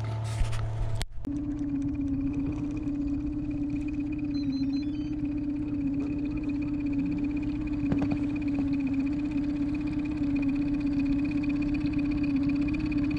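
A boat's outboard motor running steadily at a constant low pitch, a trolling pace. It starts abruptly about a second in, after a few short handling knocks.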